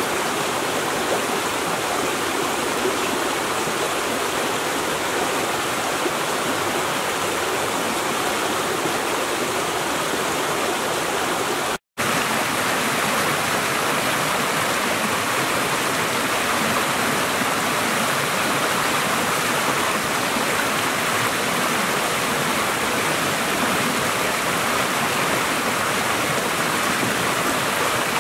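Shallow rocky creek rushing and splashing over stones in small cascades, a steady rush of water. It cuts out for an instant about midway, then resumes.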